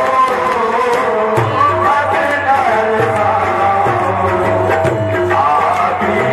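Qawwali-style devotional music: a man singing a ghazal over held instrumental notes and regular hand-drum beats.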